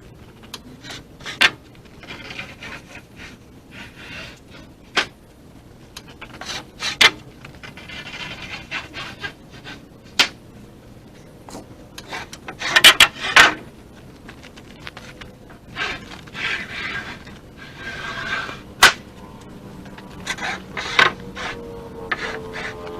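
Lumber boards being handled and stacked: sharp knocks of wood on wood, the loudest cluster about halfway through, with scraping and rubbing as planks slide against each other.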